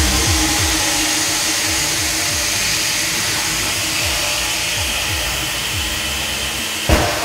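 Compressed air hissing steadily through hose couplings as it inflates balloons, over electronic music with a regular deep bass beat. Near the end a balloon bursts with a single sharp bang.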